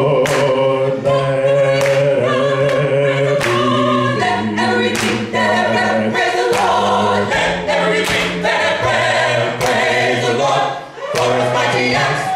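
Mixed a cappella vocal group of men and women singing a gospel song in close harmony into microphones. They hold sustained chords over a sharp beat that lands about once a second.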